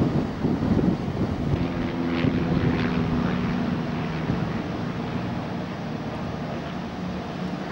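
Steady low hum of idling engines, with wind buffeting the microphone during the first second or so.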